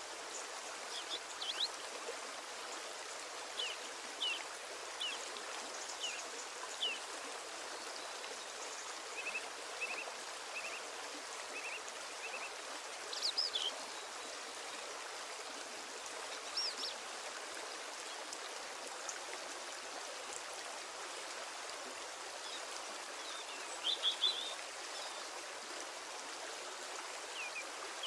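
Steady rushing of running water, like a stream, with short bird chirps now and then, a few of them in quick bunches.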